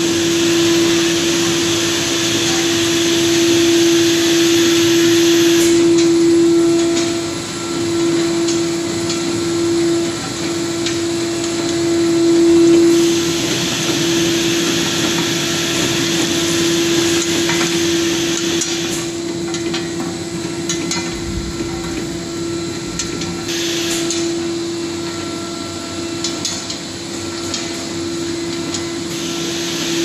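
Pillow packing machine running steadily while it wraps dishwasher tablets in water-soluble PVA film: a steady one-pitch hum over a hiss, with faint clicks from the mechanism. The hiss swells and drops several times.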